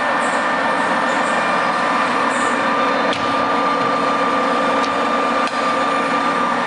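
Colchester Triumph 2000 lathe running steadily under power, its gears giving a steady whine over the mechanical running noise while the carriage moves on power feed along the bed. Two short sharp clicks come about three and five and a half seconds in.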